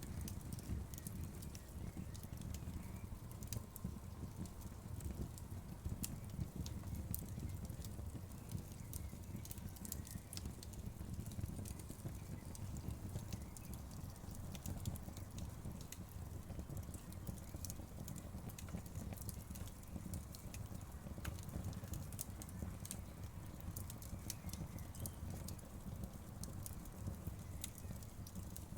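Wood fire crackling, with frequent sharp pops and snaps over a steady low rumble of the flames.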